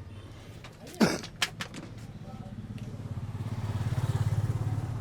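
A sharp slap about a second in, followed by two lighter taps. Then a motor vehicle's engine, pulsing fast and low, grows louder toward the end and begins to fade.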